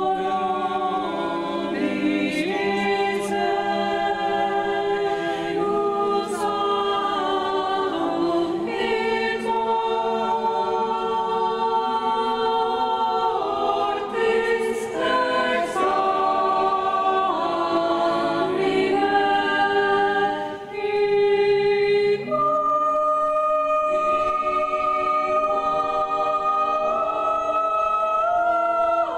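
Small mixed choir of men and women singing a cappella in held chords under a conductor, in a large church. There is a brief break about twenty seconds in before the voices come back in on a new, higher held note.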